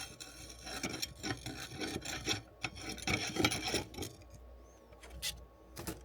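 A stand's rail being twisted into place by hand: a run of short scraping, rubbing strokes, then a couple of sharp clicks near the end.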